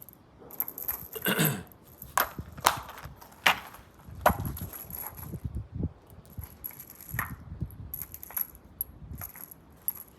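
Metal cartridges clinking and knocking as they are handled and set down on a shooting bench: a run of irregular light clicks and clinks with a few heavier knocks.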